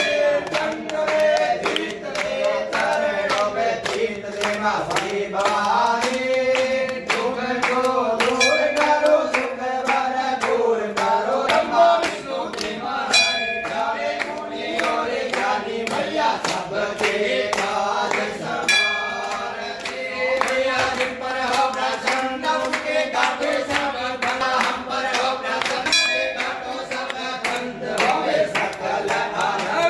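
Group of worshippers singing a devotional aarti together, with steady hand-clapping in time. A hanging temple bell rings out several times.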